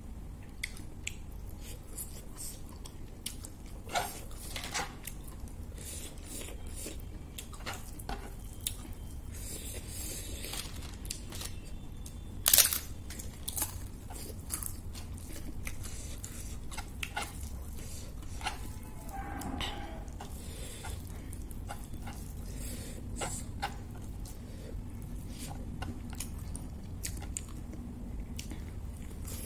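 Close-miked eating sounds: chewing and crunching of pork curry, rice and crisp papad eaten by hand, with many short crisp crackles and clicks, the loudest sharp crack a little under halfway through.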